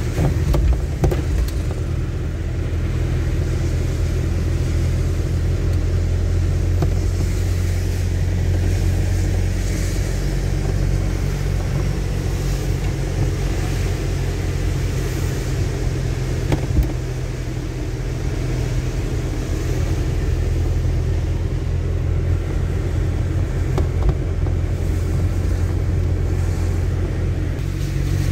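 A car driving on a wet road, heard from inside the cabin: steady engine and road rumble with the hiss of tyres on wet asphalt, and an occasional brief knock.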